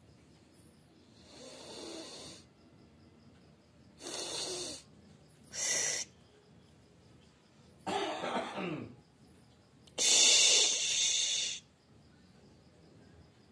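A person coughing: five separate breathy bursts, a second or two apart, the last the loudest and longest.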